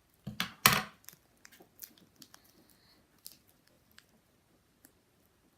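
Handling noises from craft materials: a short clatter of knocks about half a second in, then scattered small clicks and taps.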